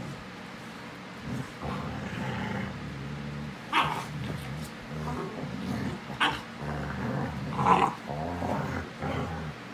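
Dogs play-fighting: low, drawn-out play growls, broken by three sharp barks about four, six and nearly eight seconds in.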